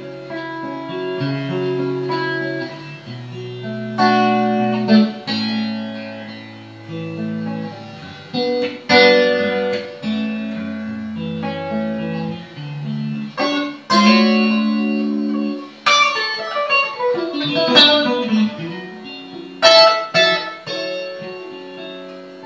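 1994 Fender American Vintage '62 reissue electric guitar played with a clean tone through a Fender Bassman amplifier: picked single-note lines and ringing chords, with a few harder-struck chords.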